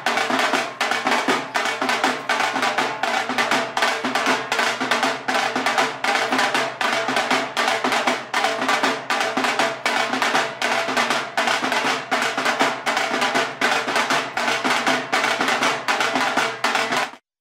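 Fast, continuous drumming: a dense, even run of drum strokes that cuts off abruptly near the end.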